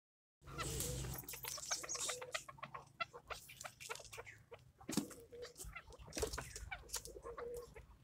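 Chukar partridges clucking, a dense run of short, quick calls and clicks, beginning just under half a second in.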